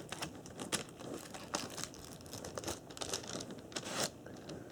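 Baseball card pack wrapper crinkling and crackling in irregular short bursts as it is opened carefully by hand.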